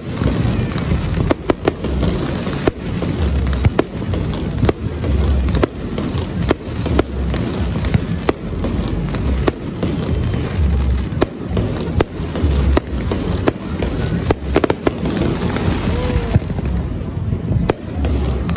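Fireworks display: aerial shells bursting in quick succession, with deep booms about once a second and sharp cracks and crackling between them.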